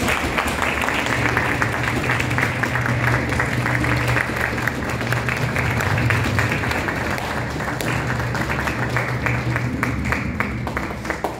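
Audience applauding steadily, with music playing underneath; the clapping thins out near the end.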